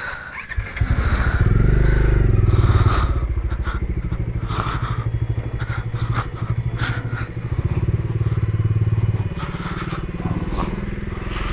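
A two-wheeler's single-cylinder engine comes in about a second in and runs at low revs, the throttle rising and easing off unevenly, with a few knocks and clatter.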